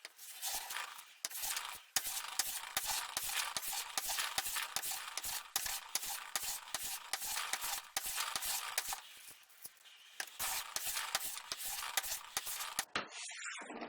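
Freshly sharpened Stanley No.4 plane blade being tried for sharpness: a quick, irregular run of crisp scraping ticks that stops suddenly near the end.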